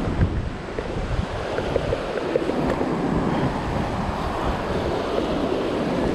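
Ocean surf washing over and around a coastal rock platform, with wind buffeting the microphone.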